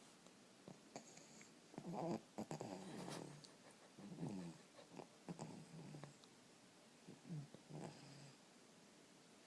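Snoring in sleep: three snoring breaths, about two, four and seven seconds in, each with a falling pitch, and small clicks in between.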